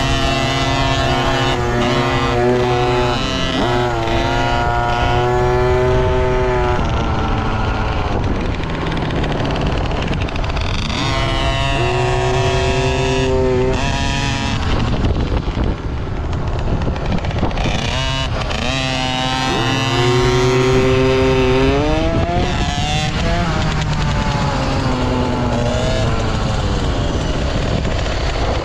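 Dirt bike engine being ridden on a trail, its revs climbing and dropping again and again with the throttle, over a steady low rumble.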